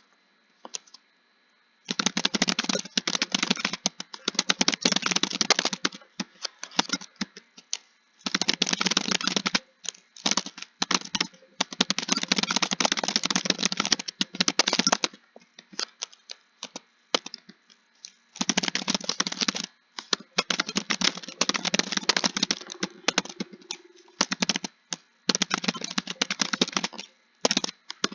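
Computer keyboard being typed on fast: rapid runs of key clicks lasting a few seconds each, broken by short pauses, the longest one at the start.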